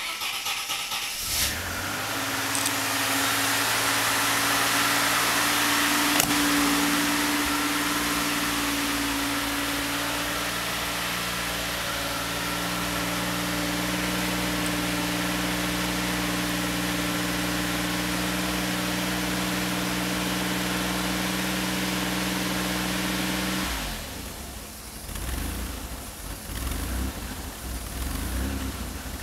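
Maserati 222 4v's twin-turbo V6 cranked by the starter and catching about a second and a half in, then idling steadily. About five seconds before the end the steady note breaks off into a rougher, uneven rumble that rises and falls.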